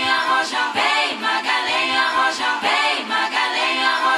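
Background music: a song carried by layered singing voices, with a sung phrase that swells and falls about once a second.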